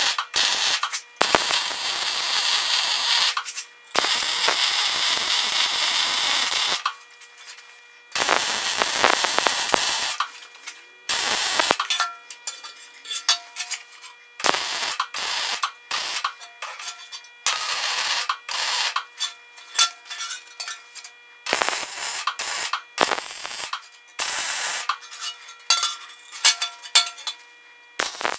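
Electric arc welding on 3/8-inch mild steel round bar: a crackling hiss in runs of one to three seconds, stopping and restarting, as the welds are built up at the joints. The runs grow shorter and choppier after about ten seconds.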